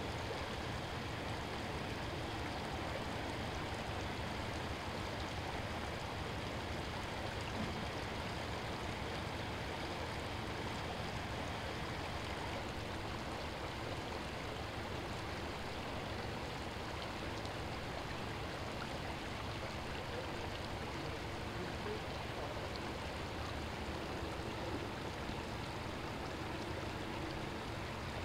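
Floodwater from a broken water main flowing steadily over a concrete sidewalk and curb, welling up through the cracks between the slabs.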